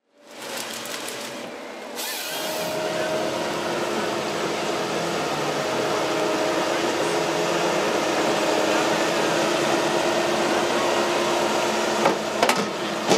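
A heavy machine running steadily, with a constant hum over a dense mechanical din, and a few sharp knocks near the end.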